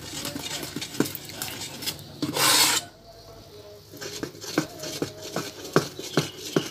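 A spoon stirring thick palm-sugar-and-flour batter in a metal saucepan: scraping and rubbing against the pan with many short clicks of the spoon on the metal, and one louder scrape about two and a half seconds in.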